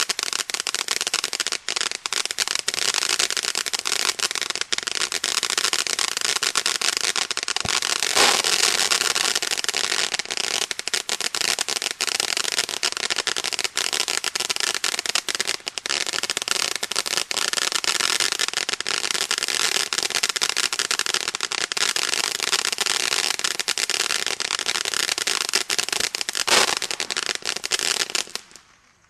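Winda P3084 'Bad Boys' firework fountain crackling densely and without a break, its crackling chrysanthemum mine throwing off a rapid stream of small pops. Louder bursts stand out about a quarter of the way in and again near the end, and the crackle dies away just before the end.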